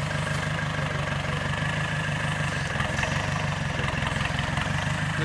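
ARO off-road 4x4's engine idling steadily at low revs while the vehicle crawls down a steep bank, with a thin steady whine above the engine note.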